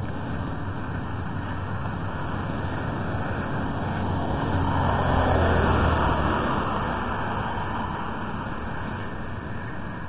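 A car passing by on the street: engine and tyre noise swell to a peak about halfway through, then fade away.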